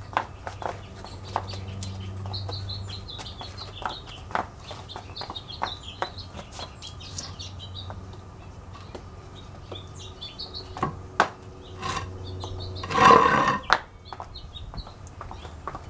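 Small birds chirping repeatedly, with scattered sharp taps of high heels on stone paving and a low hum that comes and goes. A louder noisy sound lasting under a second comes near the end.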